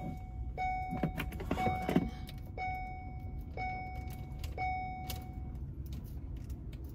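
Vehicle warning chime sounding in the van, a clear tone repeated about once a second, six times, then stopping, over a low steady rumble. A few clicks and rattles come about a second in.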